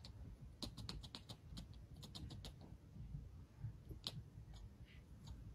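Tuxedo kitten chattering at something above it: faint, quick clicks in irregular clusters, with no meow.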